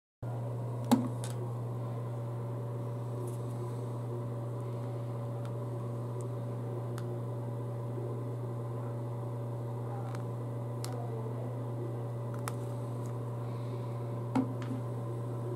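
Steady low hum of a small room with a few sharp clicks and knocks from a pocket camcorder being handled, the loudest about a second in and another near the end as it is picked up.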